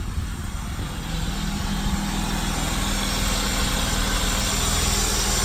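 Holden VS Commodore's 3.8-litre Ecotec V6 idling steadily through an aftermarket 2.5-inch exhaust.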